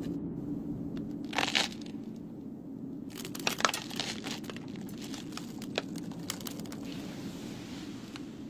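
Short clusters of sharp crackling clicks, with the loudest around the middle, over a steady low hum.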